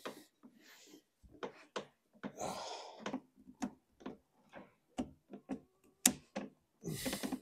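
White plastic push-fit waste pipe and fittings being handled and offered up against the wall: scattered light plastic knocks and clicks, a scraping rub about two and a half seconds in, and a sharp click a little after six seconds.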